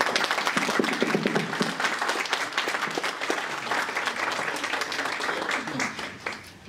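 Audience applauding, a dense patter of many hands clapping that dies away about six seconds in, with a few voices mixed in.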